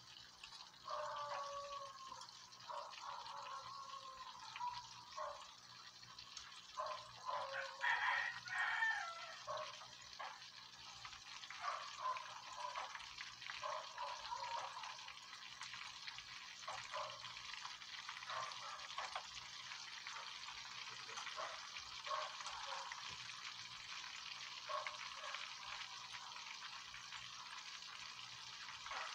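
Breaded fish fillets sizzling and crackling in a pan of hot oil, with scattered clicks of metal tongs as the pieces are turned. Poultry calling now and then in the background during the first several seconds.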